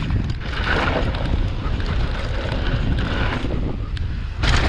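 Mountain bike riding fast down a rough trail: a steady low rush of wind on the microphone with tyre and bike rattle. Louder noisy surges come about a second in, about three seconds in and, loudest, near the end.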